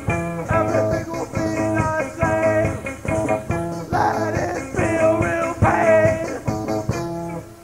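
Lo-fi art punk band recording played from a quietly dubbed cassette: guitar-led rock with a steady beat and some singing. The song stops near the end, leaving audible tape hiss.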